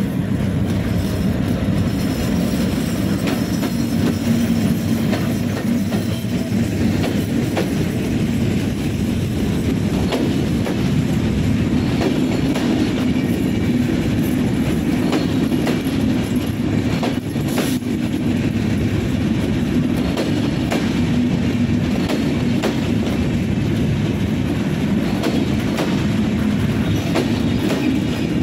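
Diesel-hauled Bangladesh Railway intercity passenger train passing close by: the locomotive goes by first, then the coaches roll past with wheels clattering over rail joints over a steady low drone. A single sharp knock comes a little past the middle.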